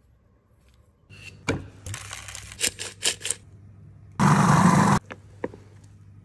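Kitchen prep sounds: sharp clicks and scrapes as food pieces are handled and dropped into glass bowls, then a food processor runs once for under a second, blitzing cooked plantains to a mash.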